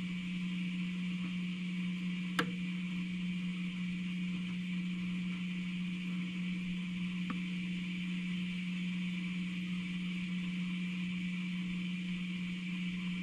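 A steady low electrical hum with a hiss over it, broken by a sharp click about two and a half seconds in and a fainter click about seven seconds in.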